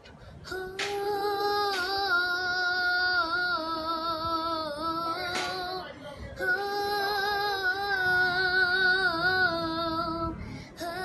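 A young girl's voice singing long held notes with vibrato, in two phrases with a short breath between them about six seconds in.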